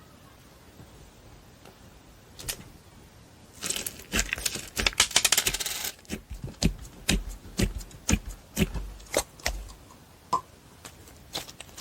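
Slime being handled: a dense stretch of crackling followed by a run of separate sharp clicks and pops.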